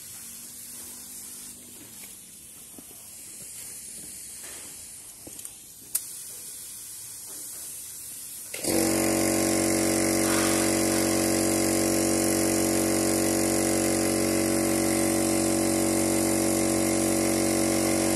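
Gravity-feed spray gun hissing as it lays paint on a car bumper, with one sharp click about six seconds in. About halfway through, a much louder, steady motor hum starts suddenly and covers the spray for the rest of the time.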